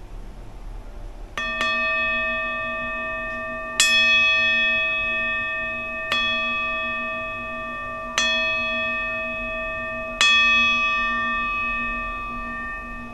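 A ritual prayer bell struck at the start of a prayer, about five strokes roughly two seconds apart. Each stroke rings on in long, slowly fading tones.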